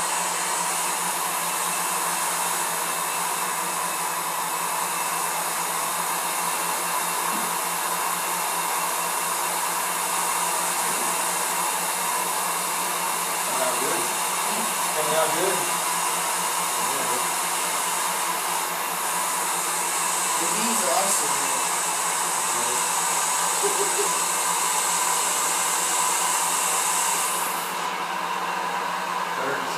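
Electric honey extraction machinery, most likely the extractor's motor, running with a steady whir and hum while honey is being extracted. Near the end the high hiss drops away and the lower whir carries on.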